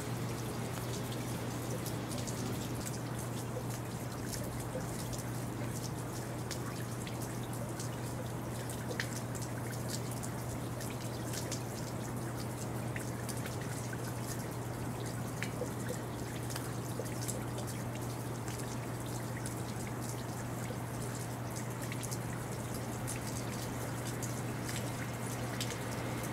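Rain dripping and pattering in many small, scattered ticks over a steady low hum.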